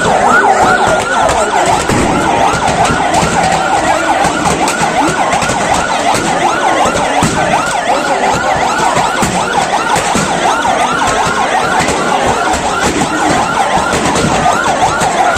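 Siren yelping in fast repeated rising-and-falling sweeps, about three a second, over constant crackling and popping from a burning building.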